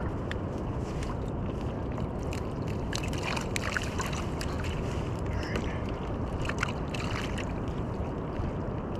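A kayak moving across open water: a steady rush of water along the hull, with wind on the microphone and splashes of spray crackling through the middle.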